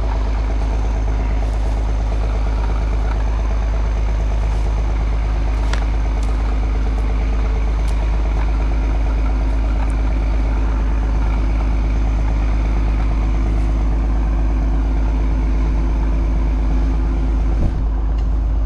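Log skidder's diesel engine running steadily. The sound cuts off suddenly at the end.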